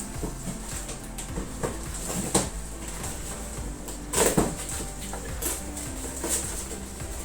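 Gift packaging being handled: rustling and short clicks, with louder crinkling about two seconds and about four seconds in.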